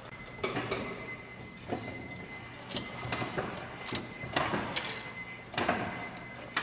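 Scattered knocks and scrapes of hand work on the car's brakes while the system is being pressurized to push the caliper piston against the pad, with a faint steady high whine throughout.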